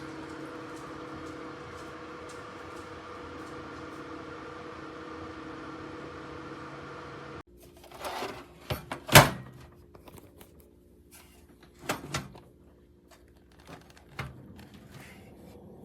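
Steady hum of PC case fans running, with a few held tones, which cuts off suddenly after about seven seconds. Then comes a series of knocks and clicks from handling, the loudest a sharp knock about nine seconds in and another pair about twelve seconds in.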